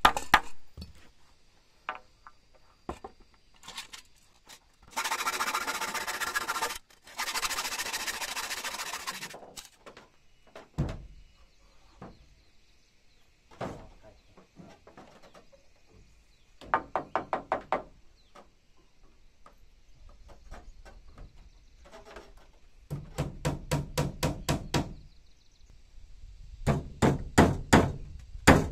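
Hammer driving nails into wooden railing posts and rails, in several quick runs of blows in the second half, with scattered single knocks earlier. Two stretches of steady rasping noise come in the first third.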